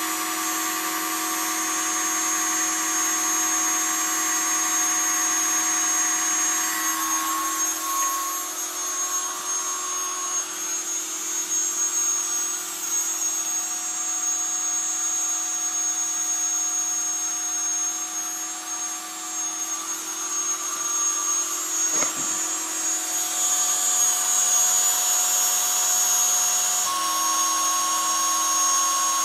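Spindle motor of a homemade CNC router running steadily with a high whine while a 2 mm three-flute cutter engraves wood. Lower humming tones from the machine shift pitch a few times as it moves.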